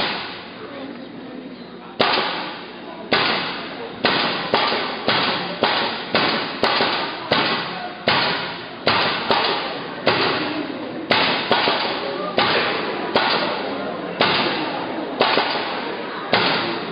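Pneumatic nail gun firing over and over into a wooden board, starting about two seconds in. There are about twenty sharp shots, a second apart at first and then roughly two a second, each ringing off into a hall echo.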